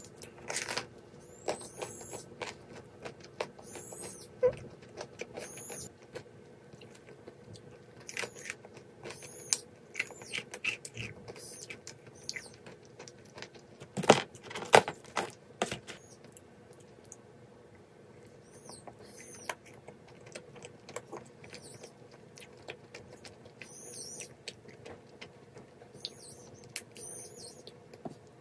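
A sparrow chirping from its nest at the window: short high chirps in clusters that come and go. Bread being torn and chewed close to the microphone makes soft crackles and clicks, loudest about 14 seconds in, over a faint steady hum.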